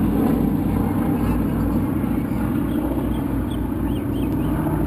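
Steady low drone of a formation of airplanes flying over and banking away, with wind rumbling on the microphone.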